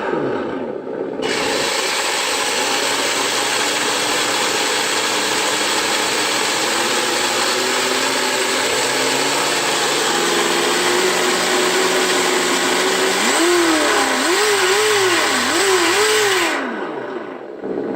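Sense ESS-ONE engine-sound module in an RC truck playing a supercharged engine sound through its speaker at full throttle. A steady loud run with a tone that rises near the middle, then about four quick rev-ups and drops near the end, after which it dies away.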